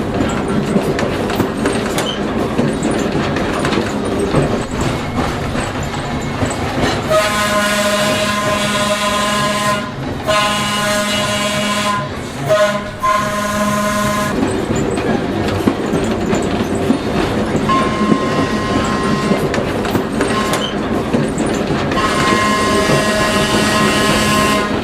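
Pacific Electric car 418 running along the track with a steady rolling noise, sounding its horn: three blasts in close succession about seven seconds in, a fainter tone later, and one long blast near the end.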